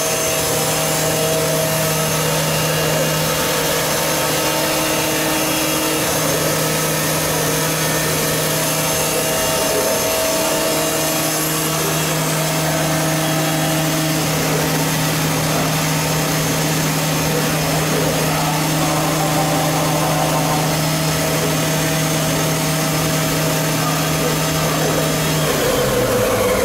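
Fadal VMC 6030 vertical machining center running under power: a steady mechanical hum and whine with a hiss over it. Near the end the low hum drops in pitch.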